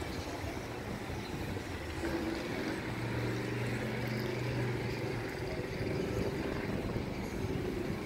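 A motor engine running with a steady low drone that grows stronger a few seconds in, over constant outdoor background noise.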